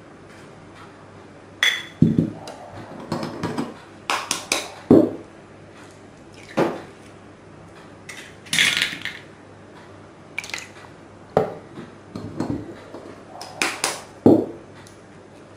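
Raw eggs being cracked against a glass bowl and emptied into a blender jug, with the shells set down in a glass dish. A string of short knocks and glassy clinks, in small clusters every second or so.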